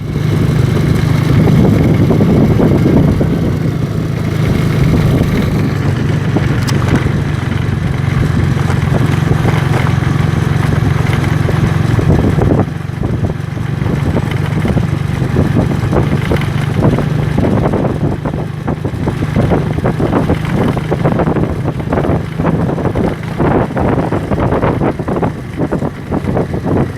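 A vehicle engine running steadily on the move, with wind noise on the microphone. There is a brief drop in loudness about halfway, and in the second half many short knocks and rattles.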